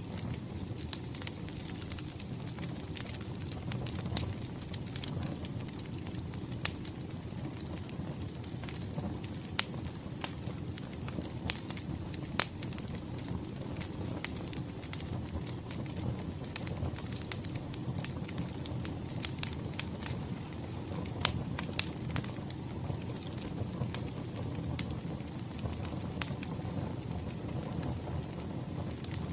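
Wood fire crackling, with sharp irregular pops over a steady low rush.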